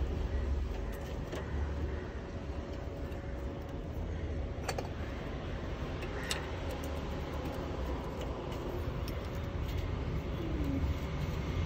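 Steady low vehicle rumble, with a couple of light metallic clicks from a spanner at the clutch linkage about halfway through.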